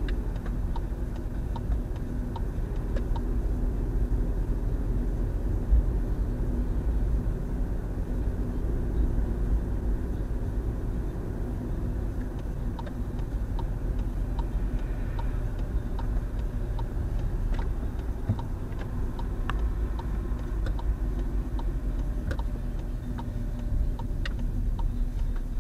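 Car cabin noise while driving steadily in third gear: a steady low engine and road drone, with a few faint scattered clicks.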